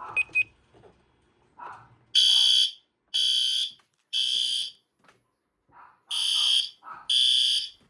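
Fire alarm horn sounding in test: half-second blasts in the temporal-three evacuation pattern, three blasts a second apart, a pause, then the next group starting.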